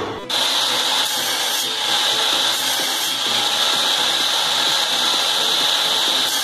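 DeWalt sliding compound miter saw running, its blade cutting through a small block of wood: a loud, steady high whine that starts about a third of a second in and holds without a break.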